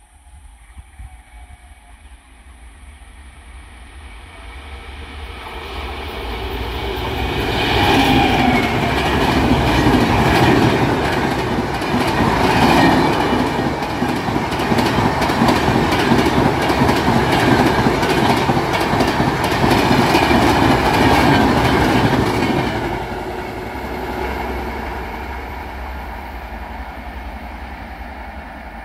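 Electric-hauled Indian Railways express passenger train passing at speed. It builds up as it approaches, runs by loudly for about fifteen seconds with a fast clatter of wheels over the track, then fades as it recedes.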